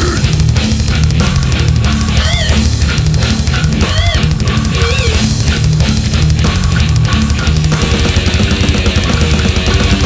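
Death metal recording: heavily distorted, low-tuned guitars and bass over rapid drumming, with three short high squealing notes at about two, four and five seconds in.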